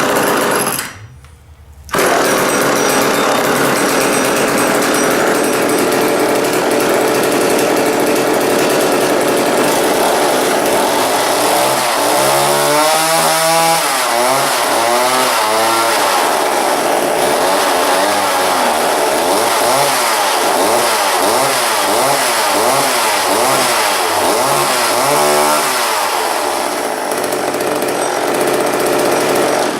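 A McCulloch Power Mac 6 chainsaw's two-stroke engine running. It drops out briefly about a second in, then runs on steadily and is revved up and down repeatedly in the middle stretch. It cuts off abruptly at the end.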